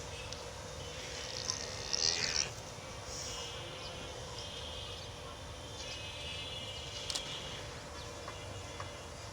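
Outdoor pasture ambience: a steady low rumble with stretches of high-pitched, even buzzing calls, and a short noisy burst about two seconds in.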